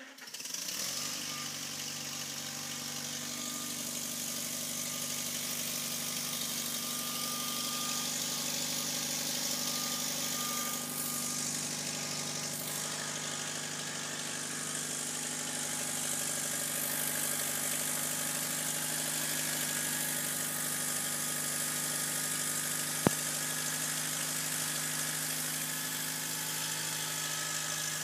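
1962 Farmall 140's four-cylinder engine idling steadily. One sharp click sounds late on.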